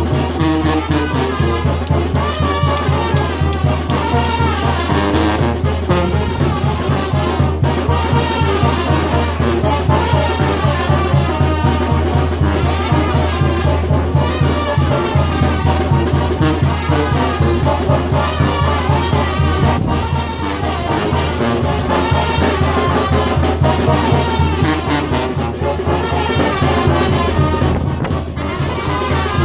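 Brass band music with a steady beat, playing for the dance.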